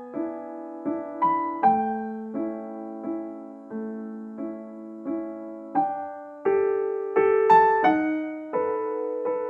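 Background music: slow, gentle piano, a note or chord struck about every three-quarters of a second and left to ring and fade.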